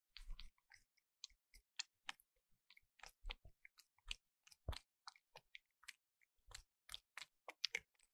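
A black-and-white cat lapping water from a plastic bucket: faint wet tongue clicks, about three or four a second, slightly irregular.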